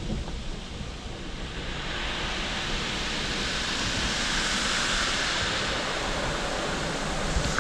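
High-pressure water jets of a touchless car wash spraying the car, heard from inside the cabin: a steady rushing hiss that swells about two seconds in.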